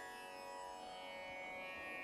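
Faint, steady Indian-style instrumental drone: many sustained tones held together, with no melody moving.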